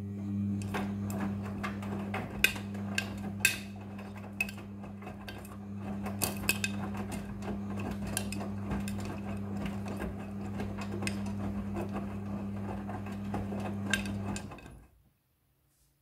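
Midea front-loading washing machine tumbling a wet load in its wash cycle: a steady motor hum with scattered clicks and clacks from the load knocking against the drum. It stops suddenly about fourteen seconds in as the drum comes to a halt.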